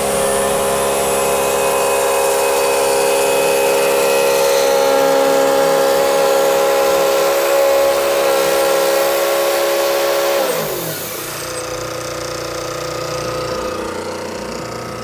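Wood-Mizer portable bandsaw sawmill running at cutting speed, then throttling down about ten seconds in, its pitch falling to a lower, steadier idle.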